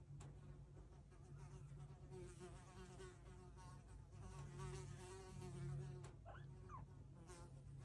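Faint steady buzzing hum with a wavering edge. Two faint rising squeaks come about six seconds in.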